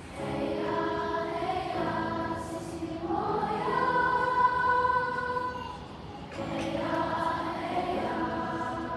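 Large children's choir singing held, sustained phrases that swell to the loudest and highest note about four seconds in, ease off briefly around six seconds in, then start a new phrase.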